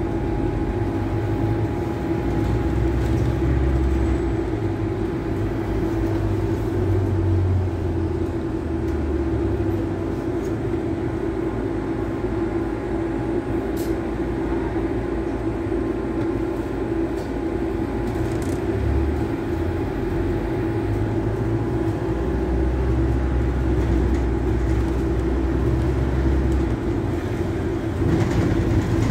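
Interior noise of a London double-decker bus under way: the engine's steady hum, with a low rumble that comes and goes as it drives along.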